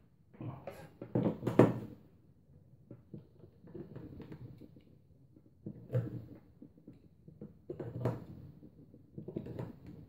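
Handling noise from plugging a wall charger into a power-strip socket and a USB meter and cable into the charger: a series of plastic knocks, clicks and scrapes, loudest about a second and a half in.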